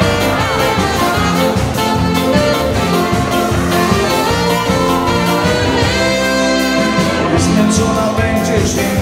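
Live wedding band playing an instrumental break of a dance song, with a horn lead over a steady beat.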